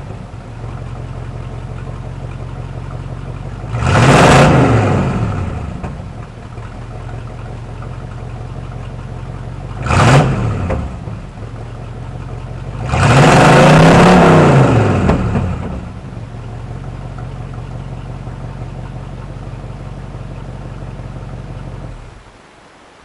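Chevrolet K1500 pickup's engine and exhaust idling, revved three times: a quick blip about four seconds in, a shorter one around ten seconds, and a longer rev held for about two seconds, each settling back to idle. The idle stops near the end. This is the truck's first run after sitting for a month.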